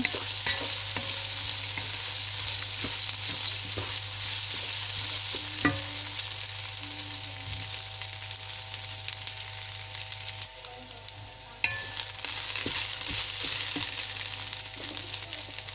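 Soaked, drained kalijira rice sizzling as it fries in ghee with whole spices, stirred with a wooden spoon that scrapes and taps the pot. The sizzle drops away for about a second roughly two-thirds through, coming back with a sharp click.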